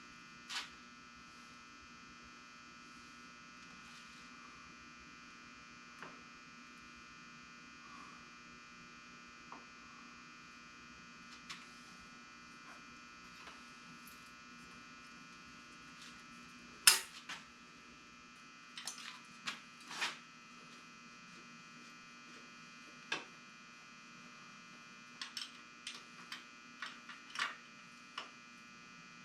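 Scattered light clinks and knocks from work on a tractor's fuel filter, with one sharper knock a little past halfway and a quick cluster near the end. A faint, steady electrical hum runs underneath.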